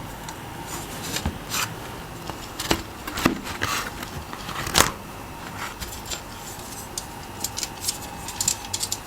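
Mechanical keyboard switches and plastic parts being worked loose from the keyboard's board: scattered sharp plastic clicks and knocks, then a quicker run of small clicks near the end.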